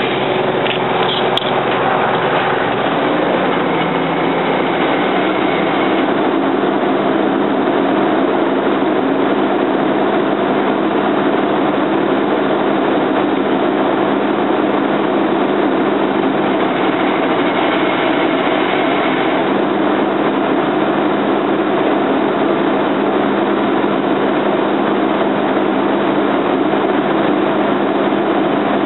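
Seismic vibrator (vibroseis) truck's diesel engine running loud and steady at close range, with a constant low hum beneath it.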